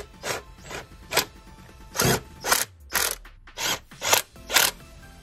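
Ratchet wrench clicking in short strokes, about two a second, as it tightens the oil pan bolts.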